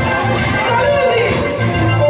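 Dance music played loud over PA speakers, with a steady bass beat and a melody that glides up and down.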